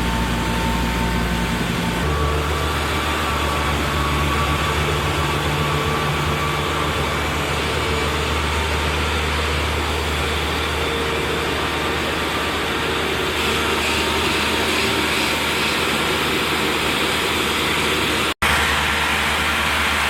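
Heavy snow-removal machinery running steadily, a continuous engine note under a constant hiss. The engine note shifts about two seconds in, and the hiss grows stronger later on. There is a momentary gap near the end.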